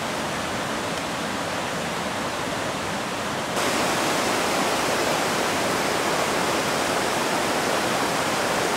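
Steady rush of water from a mountain waterfall and its cascading creek, growing louder about three and a half seconds in.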